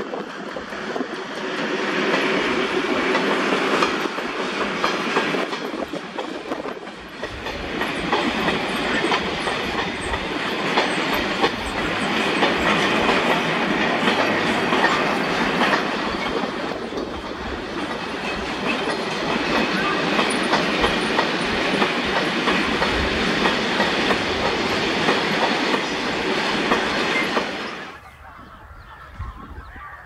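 Diesel locomotive hauling a long freight train of covered wagons past, engine running and wheels rumbling over the rails. The sound cuts off suddenly near the end.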